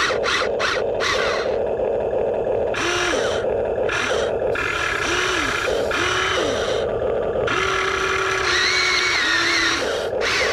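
Huina 1593 RC excavator's small electric motors and gearboxes whirring in repeated bursts as it works its tracks and bucket arm. Each burst has a whine that rises as the motor starts and falls as it stops, and the longest bursts come in the second half.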